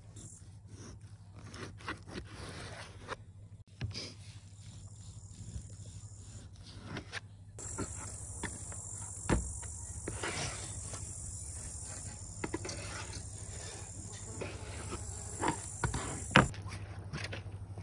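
A kitchen knife cutting raw pork into chunks on an enamel plate: irregular knocks and scrapes of the blade against the plate. A steady high buzz sets in about eight seconds in and stops about a second before the end.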